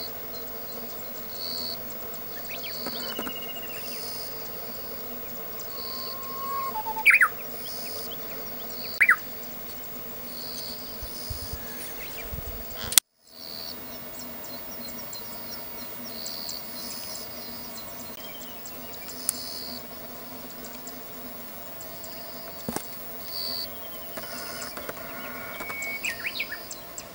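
Japanese bush warbler (uguisu) singing its whistled song, a held note followed by quick rising notes, loudest twice in the first half. Behind it a faint high chirp repeats about once a second.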